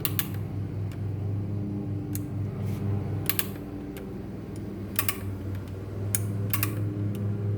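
Rebuilt Zulu shotgun's hammer and action being worked by hand: several sharp clicks at uneven intervals, some in quick pairs, over a steady low hum.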